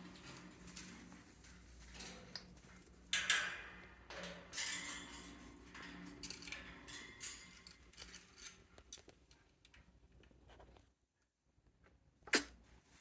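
A parrot's beak working at a wooden toy: irregular soft clicks, taps and scrapes, with a few louder rattling bursts. One short, sharp burst comes near the end.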